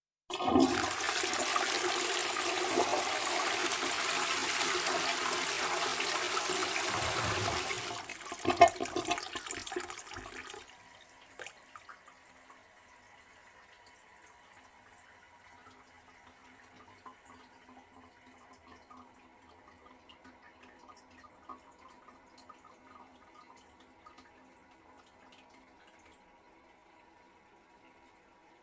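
A toilet flushing: a loud rush of water starts suddenly and runs steady for about eight seconds. It then turns uneven and gurgling for a couple of seconds as it drains, and drops to a faint trickle.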